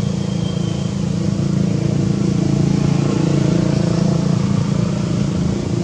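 A motor vehicle's engine running steadily, a low hum that swells a little in the middle and eases off near the end.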